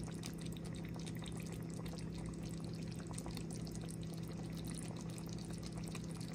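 Pork rib stew simmering in a stainless steel pot: a dense stream of small pops and crackles from the bubbling sauce over a steady low hum.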